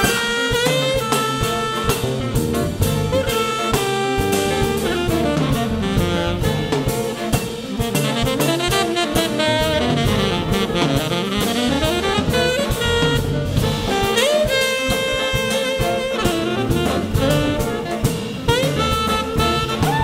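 Big band playing jazz live: a saxophone section and brass over drum kit and cymbals.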